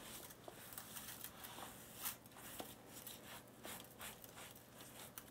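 Faint, irregular soft scrapes and rustles of coarse salt being brushed by hand off the skin of a slab of pork belly, with a slightly louder one about two seconds in. The salt has drawn moisture out of the skin.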